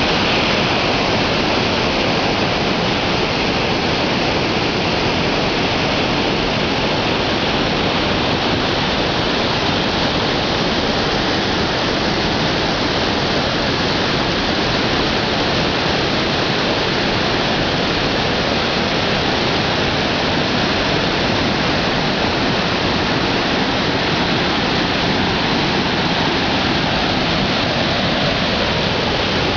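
Waterfall pouring into its plunge pool, a steady loud rush of water, close by.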